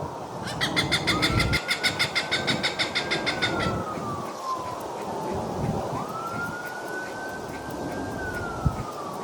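Cooper's hawk giving a rapid series of harsh cak-cak-cak calls, about seven a second, for roughly three seconds near the start. An emergency vehicle siren wails behind it throughout, rising and falling.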